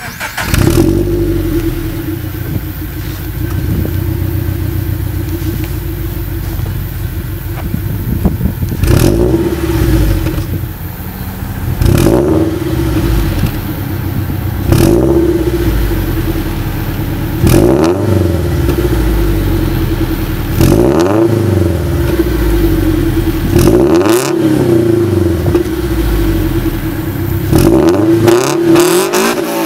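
Toyota GT86's 2.0-litre flat-four boxer engine breathing through an HKS Legamax Premium exhaust and Tomei header, idling steadily, then free-revved in about seven short blips from about nine seconds in, each rising sharply and falling back to idle.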